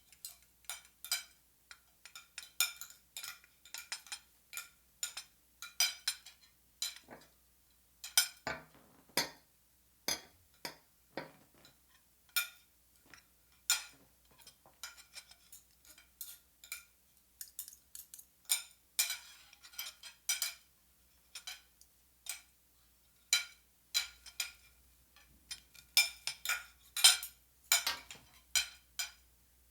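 A metal utensil clinking against a glass: irregular sharp clinks, one to a few a second and sometimes in quick clusters, each ringing briefly at the same pitch.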